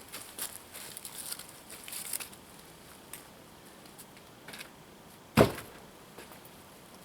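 A single axe blow striking a firewood log being split, about five and a half seconds in. Before it come light knocks and rustling.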